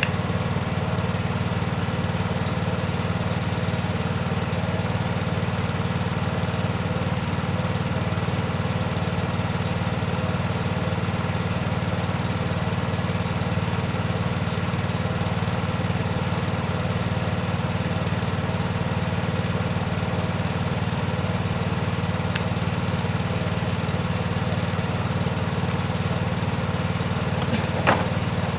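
Toyota 2KD-FTV 2.5-litre four-cylinder turbodiesel idling steadily at an even pitch, with one short click near the end.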